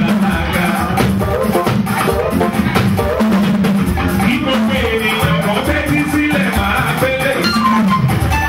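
Live Nigerian church music with drums, shakers and singing, a steady beat.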